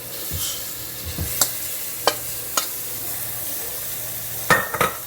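Marinated chicken sizzling as it goes into hot oil with fried onions and spices, a steady hiss with a few sharp metal clinks of utensils against the pot, two close together near the end.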